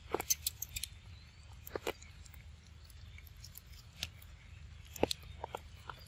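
Macaque biting and chewing a piece of fruit: clusters of sharp, wet clicks and crunches, first near the start, again around two seconds in, and about five seconds in.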